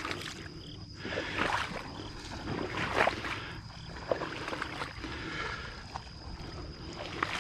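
Swamp water sloshing and swishing as a person wades through a duckweed-covered marsh, in irregular surges.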